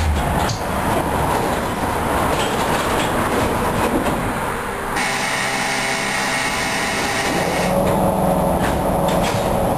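Ganz UV tram running, heard from inside the passenger car: a steady rumble of wheels on rail with a few sharp rail clicks. About halfway in, a high whine of several steady tones sets in for nearly three seconds while the low rumble drops away, then the rumble returns.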